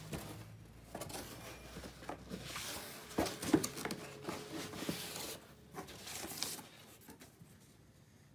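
A cardboard box and its inserts and paper leaflets being handled: rustling and scraping with scattered soft knocks, dying away near the end.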